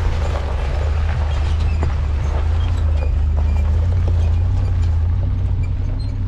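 Ford Super Duty pickup with a slide-in camper crawling slowly over rocks: a steady low engine drone with scattered small knocks and crackles from the tires and load working over the stones.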